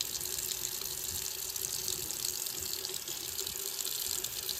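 Bathroom sink tap running steadily, the water splashing over a fresh tattoo that is being washed by hand under it.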